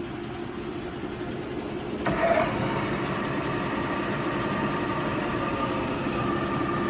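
Cincinnati No.5 horizontal milling machine running with a steady hum. About two seconds in there is a click, and a higher steady whine joins in and the sound grows a little louder as the Cat 40 milling spindle starts turning.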